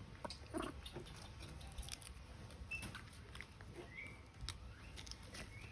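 Baby monkey giving a few faint, short, high squeaks, one rising about four seconds in, among soft scattered taps and rustles.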